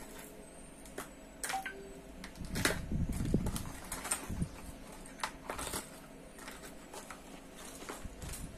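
Fishing tackle being rummaged through by hand: irregular small clicks, taps and knocks of lures and gear being moved about, busiest about three seconds in.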